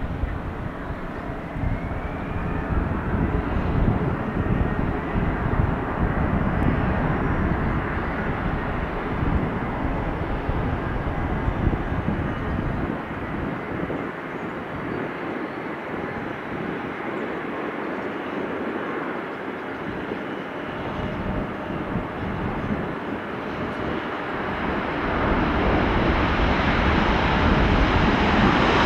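Airbus A350-900 airliner's Rolls-Royce Trent XWB jet engines on final approach and landing: steady jet engine noise with a faint whine. The noise gets louder and brighter near the end as the aircraft rolls out along the wet runway.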